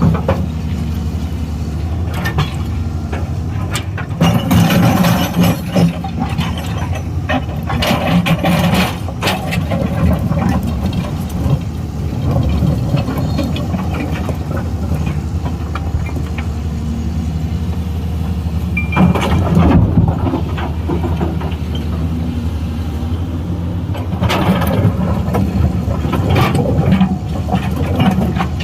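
Excavator's diesel engine running steadily, with several louder stretches of knocking and clattering as the machine works.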